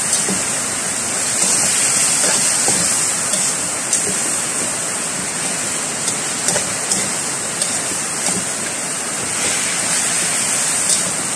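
Metal slotted spatula scraping and clinking against a steel wok as chicken pieces are stirred in sauce, a few scattered taps over a loud, steady hiss.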